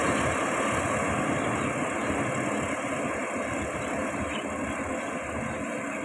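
Yanmar AG600A combine harvester running steadily while it cuts rice, its engine and threshing machinery making an even mechanical noise that slowly grows fainter as it moves away.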